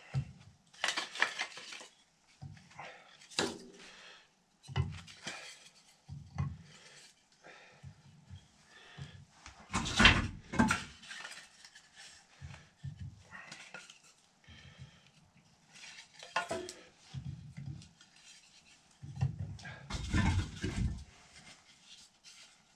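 Kindling sticks being handled and laid into the open firebox of a metal wood stove: irregular wooden clatters and knocks against the stove, loudest about ten seconds in and again near the end.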